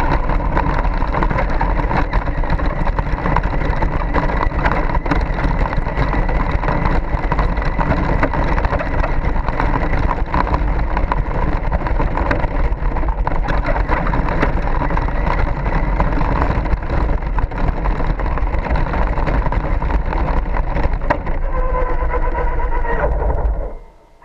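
Traxxas Slash 2WD RC truck with a Velineon brushless motor driving fast over rough street paving, heard from a camera mounted on its body: a loud rattling rumble of tyres and chassis with a faint motor whine. Near the end the whine steps down as it slows, and the noise cuts away sharply as the truck stops.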